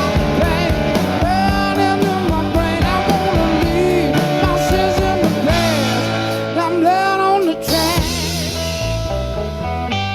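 Live blues-rock band music: electric guitar, bass and drums, with a bending melody line over the top.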